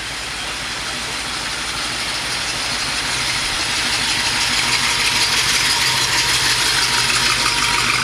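A Chevrolet Chevelle's engine idling as the car creeps past at walking pace, getting louder over the last few seconds as it comes closest.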